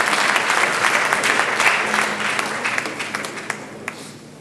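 Audience applauding, fading over the last couple of seconds to a few scattered claps.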